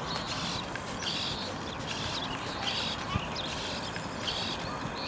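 RC servos working the oars of a model rowing boat, whirring in short bursts that repeat about once a second with the strokes.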